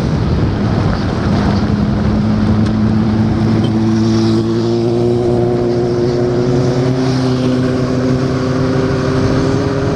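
Honda Shadow 750's V-twin engine running at a steady cruise, with wind rushing over the camera. About a second in the engine note settles into a steady hum that creeps slightly higher. A few seconds in the tyres are rolling over cobblestone paving.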